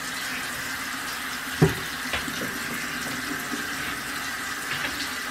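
Bathroom sink faucet running steadily into the basin, with a single brief thump about one and a half seconds in.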